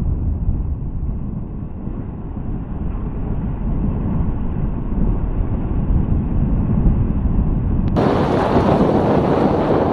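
Wind buffeting a motorcycle-mounted camera's microphone while riding, a deep, steady rush of wind and road rumble. About eight seconds in it suddenly turns brighter and hissier.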